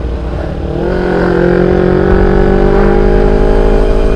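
Motorcycle engine pulling hard under acceleration: about a second in, its pitch rises, then keeps climbing slowly as the bike gathers speed. Wind buffets the microphone throughout.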